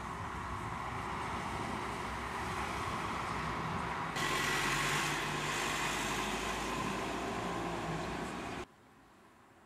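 Road traffic: steady vehicle noise from the street below, with a vehicle passing louder about four seconds in. The sound cuts off suddenly near the end.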